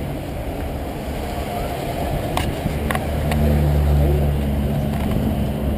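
A motor running with a low steady hum that swells about halfway through, with a few light clicks.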